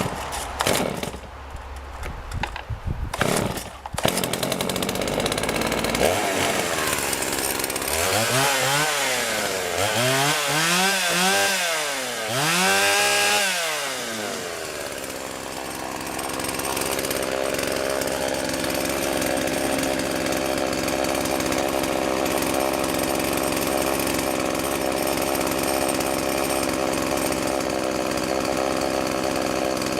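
Partner 465 two-stroke chainsaw revving up and falling back three times, then running steadily at one speed. The carburetor is still unadjusted.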